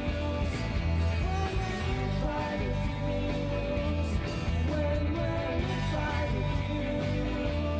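Live rock band playing at full volume: two electric guitars, electric bass and drums, with singing.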